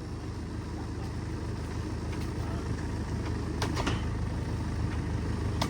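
An engine idling with a steady low drone, with a few short knocks or clicks in the second half.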